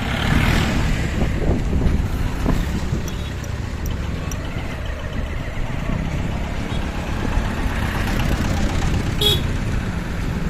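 Road traffic: the engines and tyres of passing cars and trucks make a steady rumble, with a short horn beep about nine seconds in.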